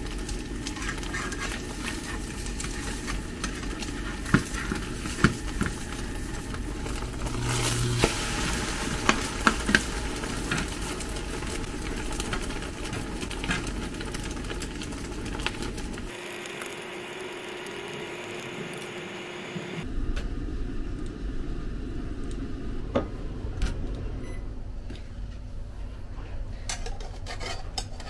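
Thai omelette sizzling as it fries in a nonstick frying pan, with scattered clicks and scrapes of a metal spatula against the pan.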